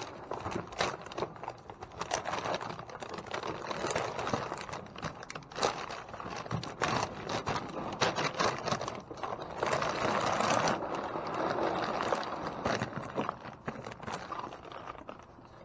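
Rustling, crinkling and scraping of a torn plastic pet-food bag being handled, with many small clicks and a longer rasping stretch about ten seconds in.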